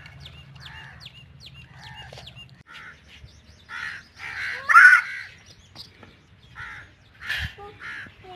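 Crows cawing in a series of harsh calls, the loudest about five seconds in. In the first couple of seconds a small bird gives a rapid string of short, high, falling chirps.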